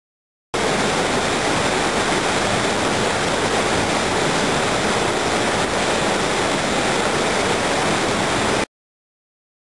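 Steady rushing of wastewater flowing through the treatment plant's channels, cutting in sharply about half a second in and cutting off sharply about a second before the end.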